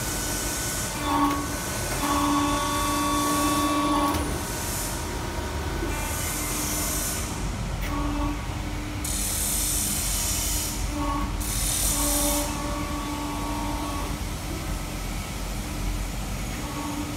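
A WF67K-300T/6000 CNC hydraulic press brake running under a steady low hum. Whining tones start and stop several times as the machine cycles, with repeated bursts of high hiss between them.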